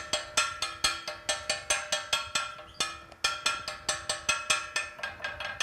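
A fork rapidly pricking a kesra (Kabyle semolina flatbread), about five quick strokes a second, each tine strike clinking with a short ring against the hard surface beneath.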